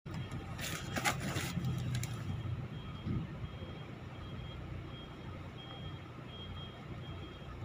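Box truck reversing: its engine runs low and steady while the reversing alarm gives a short high beep about every two-thirds of a second. A louder hiss comes in the first couple of seconds.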